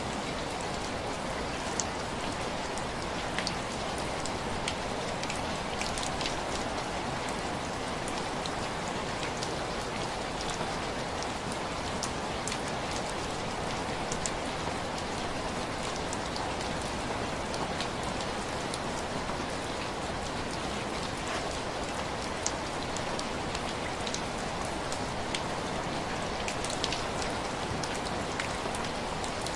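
Heavy rain falling steadily, an even hiss, with scattered sharp ticks and clicks every second or so.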